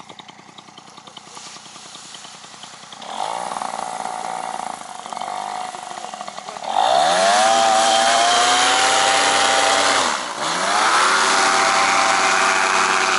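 Paramotor engine and propeller on a takeoff: a low idle at first, opened up about three seconds in, then run up to full throttle with a rising pitch as the wing comes overhead. Near the end the throttle is eased briefly and then run back up.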